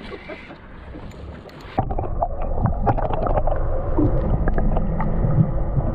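Audio from an underwater camera: a muffled rumble of water, full of sharp clicks and ticks, that starts suddenly about two seconds in. Before that there is a quieter hiss of wind and water.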